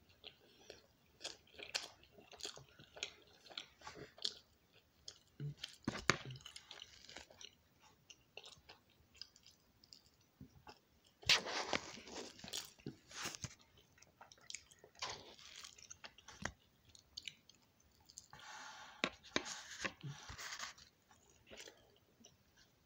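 A person chewing a mouthful of bread close to the microphone: irregular wet clicks and smacks of the mouth, with a few louder ones along the way.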